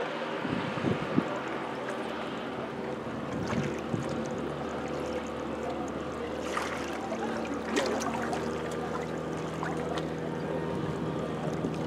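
Steady hum of a motorboat engine, with a second low tone joining about eight seconds in, over wind and water noise. A few sharp clicks stand out.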